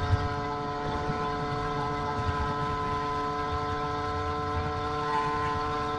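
Two-stroke YD85 engine with a Master Blaster expansion-chamber pipe running at steady speed, a buzzing exhaust note that holds one pitch, over low wind and road rumble.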